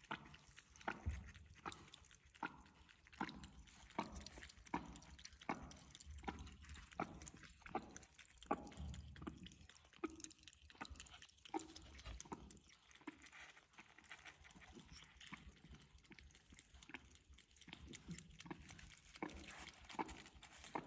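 A cat lapping milk from a bowl: faint wet clicks and smacks of tongue and mouth, a little more than one a second.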